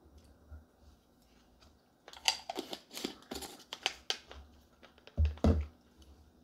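Wooden fork clicking and scraping inside a glass jar in quick irregular clicks. About two seconds in, two low knocks follow a little after five seconds.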